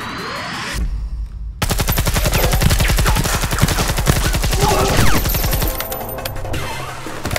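Submachine gun firing one long burst of rapid automatic fire that starts abruptly about one and a half seconds in and lasts about four seconds, with a deep rumble just before it.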